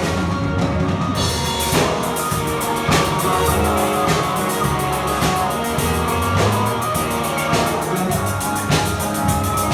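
A rock band playing live, with the drum kit's kick and snare to the fore.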